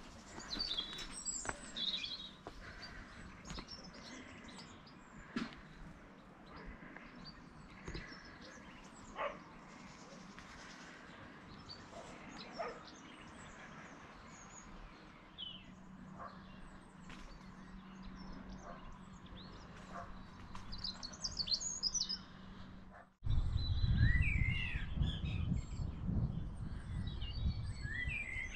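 Small songbirds chirping and singing, with a few sharp clicks in the first half. About 23 s in, the sound drops out for a moment and comes back with a loud low rumbling noise under the birdsong.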